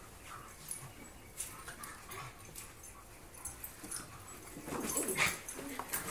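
Husky, wolf hybrid and pug playing rough together: scuffling bodies and paws with small whiny dog noises, then a louder burst of dog vocalizing about five seconds in.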